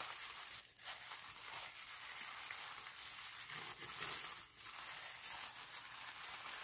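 Tissue paper crinkling and rustling as hands unfold and smooth it, going on with a couple of brief lulls.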